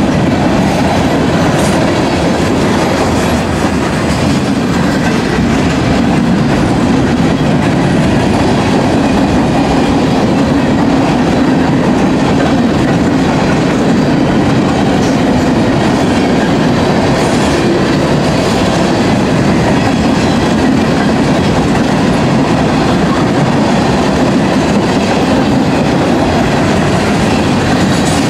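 Freight cars of a manifest train (boxcars and tank cars) rolling past: steel wheels on the rails making a loud, steady rolling noise.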